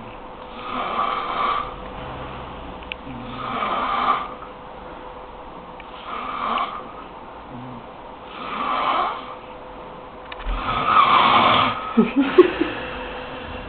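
Heavy snoring: about five long snores, roughly every two and a half seconds, the loudest near the end followed by a few short sharp catches.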